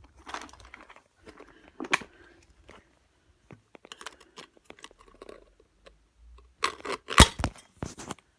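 Rustling and clicking handling noises, with a burst of sharper clicks and crackles near the end.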